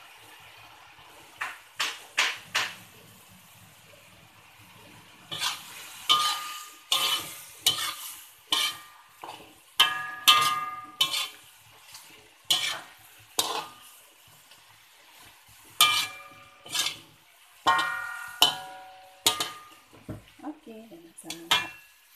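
A metal spatula scraping and clanking against a steel wok during stir-frying, in irregular strokes with a metallic ring on many of them, over a faint sizzle of the frying food. Three quick strokes come early, and the stirring runs steadily from about five seconds in.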